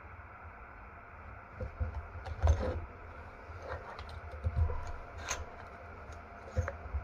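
Gloved hands handling the metal parts of a dismantled distributor on a cloth-covered workbench: scattered light clicks and clinks with a few knocks, the loudest about two and a half seconds in.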